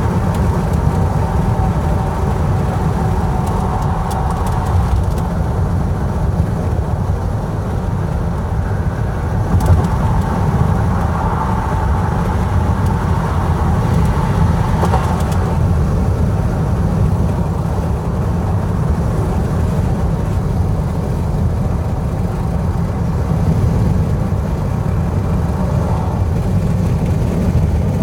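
Steady road and engine noise of a car at highway speed, heard from inside the cabin: a continuous low rumble with a faint hum above it.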